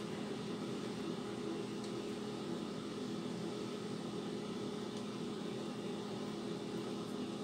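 A steady low machine hum with no changes or knocks.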